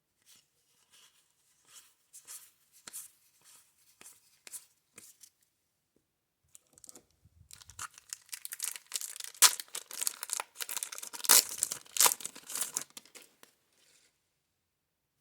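Light clicks of baseball cards being handled, then a wax-paper card pack torn open and crinkled for several seconds in the second half.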